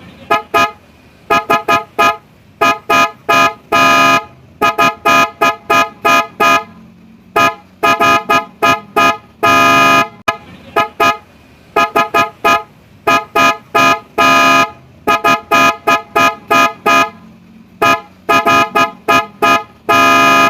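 PIAA Super Bass sports horn being tested: many quick short honks in rapid clusters, with a few longer blasts of about half a second, each a steady pitched blare.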